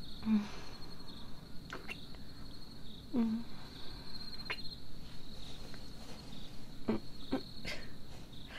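Crickets chirping in a steady, pulsing high trill, with a few soft, brief sounds on top.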